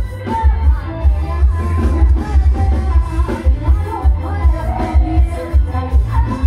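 Loud amplified band music from a Thai rot hae sound-stage truck: a heavy, steady bass beat about twice a second with singing over it, played through the truck's large PA speakers.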